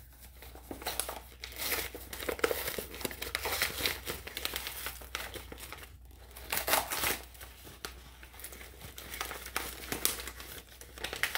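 White paper plant wrapping being unfolded and pulled apart by hand, crinkling and rustling in irregular bursts, louder about a fifth of the way in, just past the middle, and near the end.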